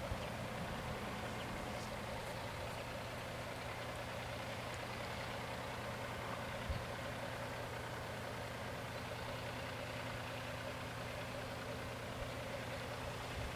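Car engine idling steadily with a low hum.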